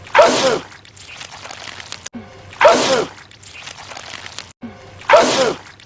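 A man's sneeze, the same one repeated three times about two and a half seconds apart. Each is a short drawn-in run-up followed by a sudden loud "achoo" that falls in pitch.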